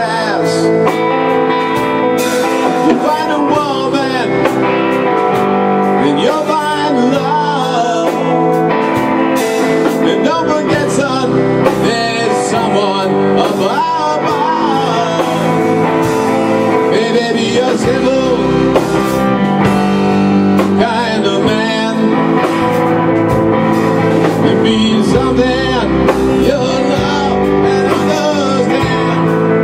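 Rock band playing live: electric guitars and a drum kit with cymbals, a full steady groove with bending guitar notes.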